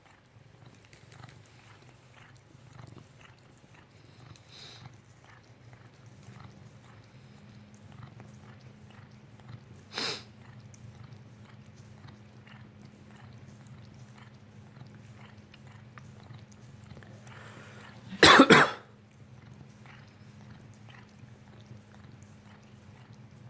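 A cat licking, with many small faint clicks over a steady low hum. A short cough-like burst comes about ten seconds in, and a louder one about eighteen seconds in.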